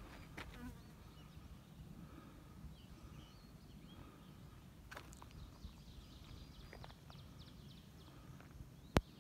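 Faint buzzing of flying insects, flies or bees, with faint high chirps in the background, and a single sharp click near the end.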